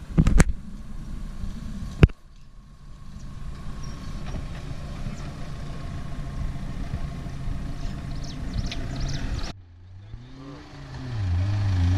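Off-road 4x4's engine running, with two sharp knocks near the start. Near the end the sound changes abruptly and an engine revs, its pitch rising and falling.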